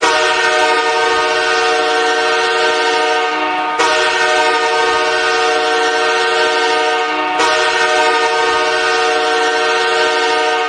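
Los Angeles Kings hockey goal horn, the arena horn that signals a home goal, sounding a chord of several tones in three long blasts back to back, each about three and a half seconds.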